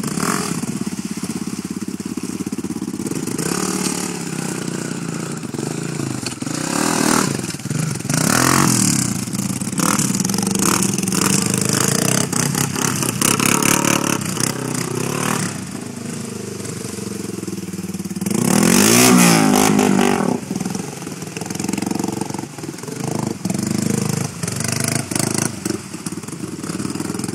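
Sport quad ATV engine revving up and down repeatedly as it churns through shallow muddy water, the loudest surge about two-thirds of the way through.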